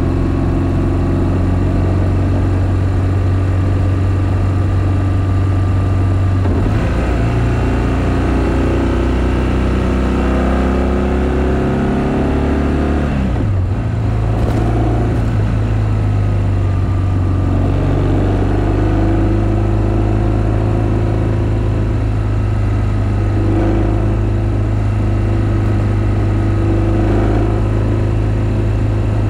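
BMW R1200GS flat-twin boxer engine running on the move. About ten seconds in the revs climb for a few seconds, then drop suddenly, and the engine settles back into a steady run.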